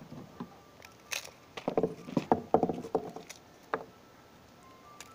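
A quick run of close knocks and clatters, as of things being handled and set down, starting about a second in and lasting a couple of seconds, with one more knock near the end.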